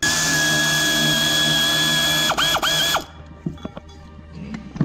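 Pneumatic air ratchet spinning a bolt out with a steady high whine. Two quick trigger blips come about two and a half seconds in, and the ratchet stops about three seconds in. Faint metal clinks follow.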